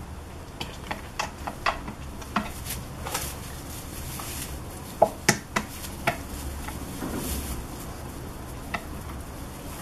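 Goats moving about in a straw-bedded pen: scattered sharp knocks and clicks. A quick run of louder knocks about five to six seconds in comes as a young goat's hooves clamber onto a wooden stool.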